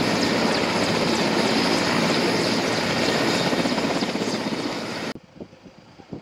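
Helicopter running loud and steady on the pad, rotor and turbine noise mixed with the rush of the rotor wash. It cuts off suddenly about five seconds in, leaving a low background with a few faint knocks.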